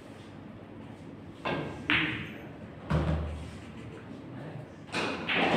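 A pool shot: the cue tip strikes the cue ball, then a sharp, ringing click of ball on ball, then a low thud about a second later. More clicks of balls come near the end.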